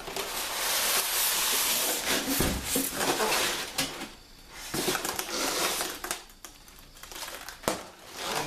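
Packaging rustling and scraping as pieces are pulled out of a cardboard monitor box: a long loud rush of rustling over the first two seconds, then shorter bursts, and a sharp knock near the end.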